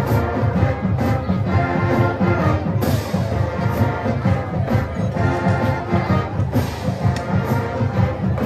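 A large marching band playing: massed brass and woodwinds over a steady beat of drums and cymbal hits.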